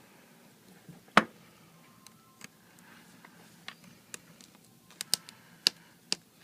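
Scattered sharp clicks and taps of a razor blade working against an iPad 3's frame while old glue is scraped off. One loud tap comes about a second in, and a quick run of clicks comes near the end.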